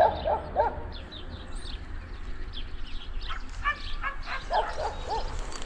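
A dog barking in short yaps: a quick cluster of barks right at the start and another run about four to five seconds in.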